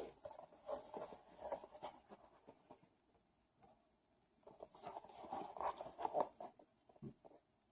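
Small cardboard toy box being handled, faint rustling and light taps in two spells, one at the start and one about halfway through.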